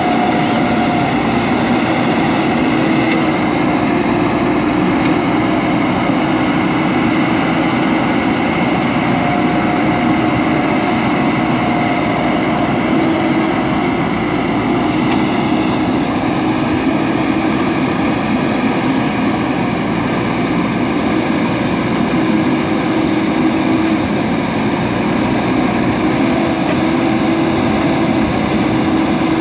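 JCB 3DX backhoe loader's diesel engine running steadily under load while the backhoe arm digs, with a few steady tones sounding over the engine noise.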